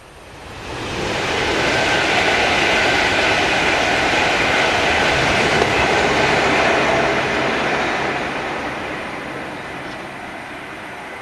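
Steam-hauled express train, the A1 Pacific 60163 Tornado and its carriages, passing at speed on a main line. The rush of wheels and carriages builds in about a second, stays loud for several seconds, then slowly dies away.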